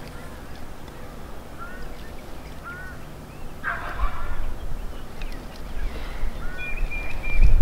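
Wild turkey giving a few short, arched yelps spaced a second or so apart, with a brief rustle of brush about four seconds in.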